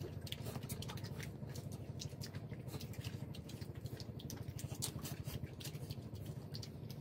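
Boiled shrimp being peeled by hand and eaten: a steady run of small, irregular crackling clicks of shells breaking and pulling apart, mixed with chewing. A low steady hum lies underneath.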